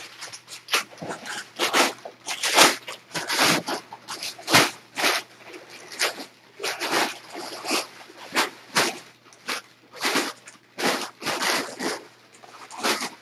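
Sheets of brown kraft packing paper being crumpled and handled: loud, irregular crinkling and rustling, bursts coming several times a second.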